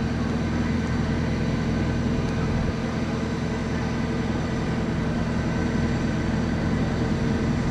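Steady machine hum, like an engine or plant running at a constant speed, with several fixed tones that do not change.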